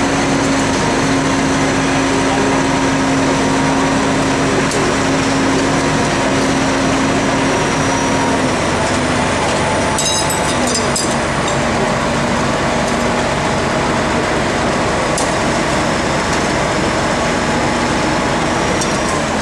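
Heavy engine of a crane running steadily under city street noise as it holds a sign panel on its cables; the hum drops slightly in pitch about eight seconds in. A quick cluster of clicks comes about ten seconds in.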